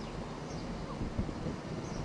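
Class 159 diesel multiple unit approaching at low speed: a steady low diesel engine rumble.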